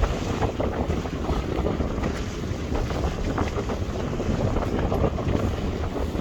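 Steady wind buffeting the microphone aboard a sailing yacht under way, with the rush of water and waves around the boat.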